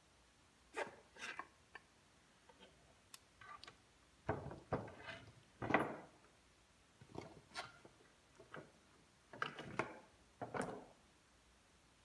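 Parts of a Porter-Cable 7518 router being handled as it is taken apart: a run of irregular knocks, clunks and short scrapes, with the loudest clunk about halfway through, as the housing is twisted loose and pieces are set down.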